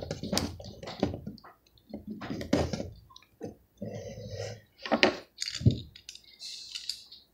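Hard plastic parts of a Transformers figure clicking and rustling as it is handled, with a few sharp knocks against a wooden tabletop. The sounds come irregularly, loudest about five seconds in.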